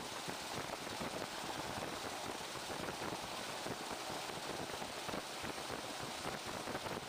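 Steady rush of wind and running noise from a moving diesel train, heard at an open window with the air buffeting the microphone. It is an even rushing noise with no distinct engine tone.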